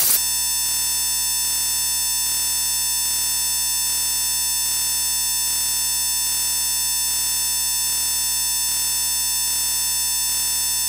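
A steady electronic buzz with many even overtones, unchanging in pitch and loudness, that starts abruptly.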